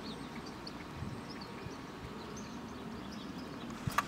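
Hoofbeats of an Arabian mare moving over a sand arena under a rider, with a single sharp click just before the end.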